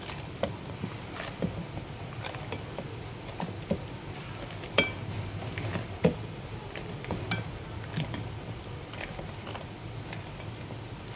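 Metal spoon stirring thick, frothy rice-flour batter in a glass bowl, clinking against the glass irregularly, about once a second.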